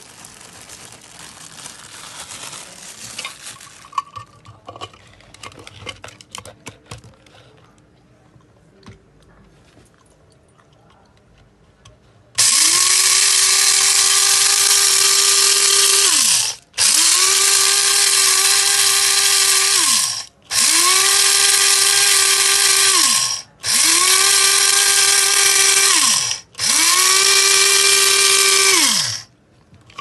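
Small electric blade coffee grinder grinding raw rice into flour, run in five loud pulses of about three to four seconds each, its motor whine falling away each time the button is let go. Before that, rice grains hiss as they pour into the cup, and a few clicks come about four seconds in.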